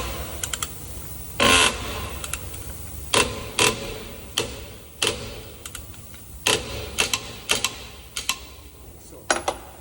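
Irregular metallic clicks and knocks of a wrench being worked on a truck's wheel nuts while they are checked and tightened, the loudest about a second and a half in, over a faint steady low hum.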